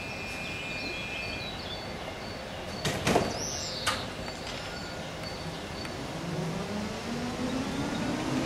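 Tatra KT8D5 articulated tram at a stop: a high steady tone that stops about a second and a half in, two sharp knocks around the middle, then the tram's traction equipment whining and rising in pitch as it starts to pull away near the end.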